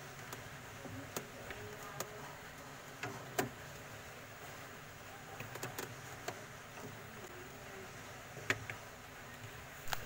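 Faint scattered clicks and taps as wires and a soldering iron are worked against the plastic body and terminals of a refrigerator defrost timer, over a low steady hum.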